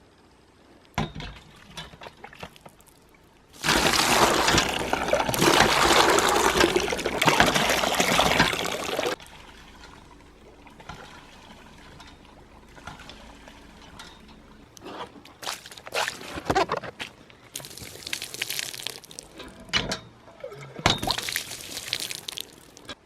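Liquid being poured in a steady stream for about five seconds, with scattered knocks and clatter afterward and two shorter pours near the end.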